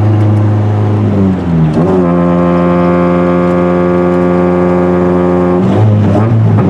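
Toyota 20-valve 4A-GE four-cylinder engine pulling a car on the road. The engine note rises about a second in, holds steady at the higher revs for several seconds, then drops back near the end. It is on a rough base tune and running very rich.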